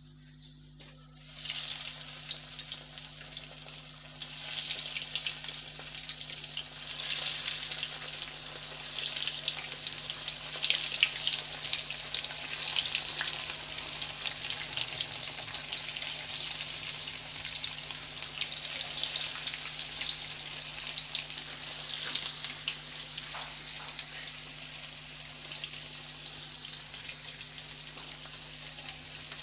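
Egg-and-breadcrumb-coated bread samosas deep-frying in hot oil. The sizzle starts suddenly about a second in as they go into the oil, then carries on as a steady crackling hiss full of fine pops.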